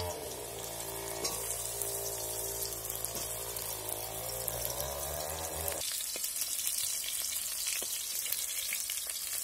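Pieces of pumpkin sizzling as they fry in hot oil in a steel wok, with a metal spatula clicking and scraping against the pan. A steady low hum runs under the frying and stops about six seconds in.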